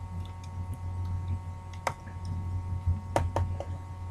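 A few small sharp clicks and ticks of small tools and hard plastic laptop parts being handled during disassembly: one about two seconds in and two in quick succession near three seconds, over a steady low hum.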